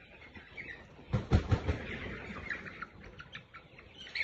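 Chickens in a pen, with many short high peeps and chirps and a few low knocks about a second in.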